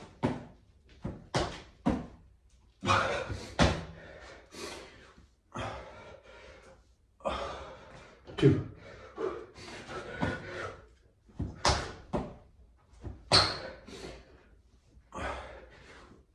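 Hands and feet landing on a tiled floor during repeated burpees: irregular sharp thuds and slaps, several a second at times, with hard breathing between them.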